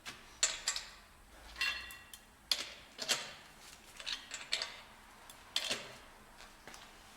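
Sharp metal-on-metal knocks, about nine at irregular intervals, some ringing briefly: the wheel-lock key being tapped into a rusty, damaged locking wheel bolt.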